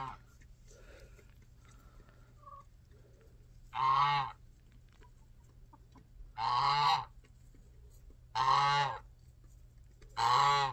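Domestic white goose honking: four loud calls, each about half a second long, roughly two seconds apart.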